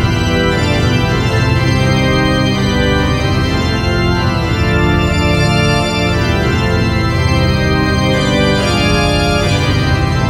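Background music with a sustained organ sound, held chords shifting every second or two.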